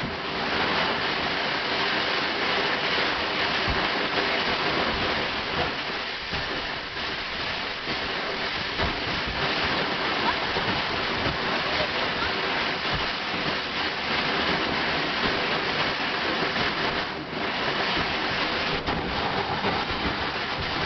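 A steady, loud rushing hiss with no clear pitch that starts abruptly and dips briefly about seventeen seconds in.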